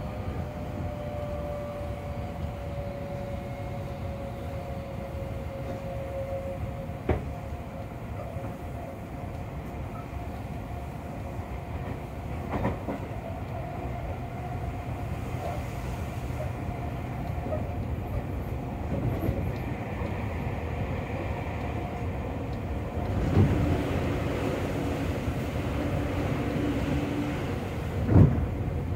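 Running noise inside a Seibu 40000-series commuter car: the whine of its Toshiba IGBT-VVVF inverter and permanent-magnet synchronous motors falls slowly in pitch over the first several seconds, over a steady wheel-on-rail rumble. Four sharp clacks over rail joints come through, the loudest near the end.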